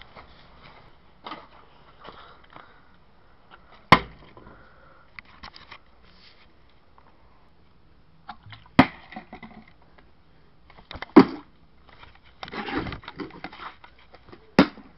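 Plastic water bottle being flipped and landing with a sharp thud, four times a few seconds apart. A stretch of rustling handling comes near the end.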